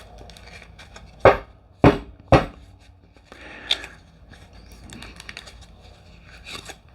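Creaking and crackling of a new deck of glossy tarot cards being flexed and handled, the cards stuck together and being loosened. Small crackles run throughout, with three sharp knocks a little over a second in and another near the middle.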